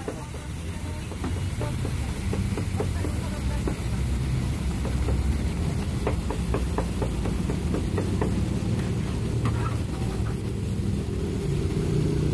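A large knife chopping cooked meat on a wooden chopping block: a quick run of knocks about halfway through and a few more later, over a steady low engine-like rumble.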